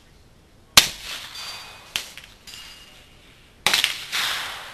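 Two shots from an AR-15 in .300 Blackout firing subsonic rounds, about three seconds apart. After the first there is a sharper clang and a thin ringing as a bullet strikes the hanging steel target.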